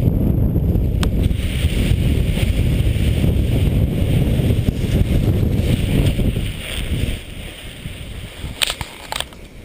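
Wind buffeting the microphone, a loud low rumble that eases after about seven seconds, with a few sharp clicks near the end.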